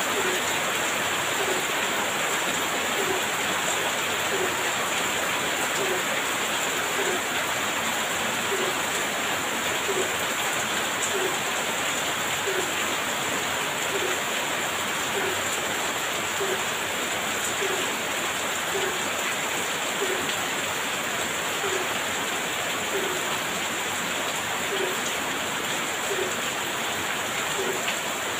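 Heavy rain falling steadily, with a faint regular drip about once a second.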